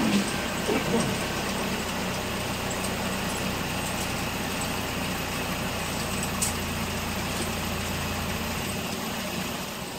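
Toyota Platz's VVT-i four-cylinder petrol engine idling steadily, run up on fresh oil after an oil and filter change. A single light click about two thirds of the way through.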